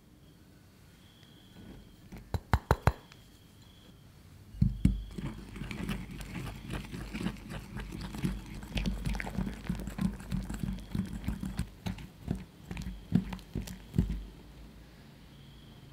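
Wire whisk clattering and scraping around a ceramic bowl as powdered sugar is beaten into a coffee-butter mixture, a quick irregular run of taps and scrapes for about ten seconds from about four and a half seconds in. A few sharp clicks come shortly before it.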